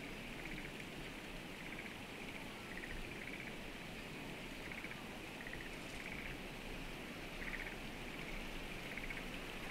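Frogs calling: short pulsed croaks repeating irregularly, about once a second, over a steady outdoor hiss.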